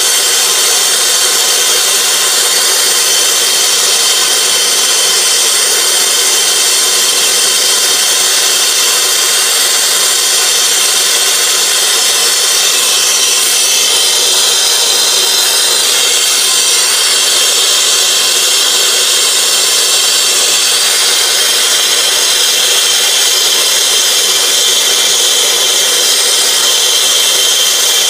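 Hand brazing torch flame hissing steadily and unbroken as it heats a copper line joint for silver soldering onto an air-conditioner A-coil.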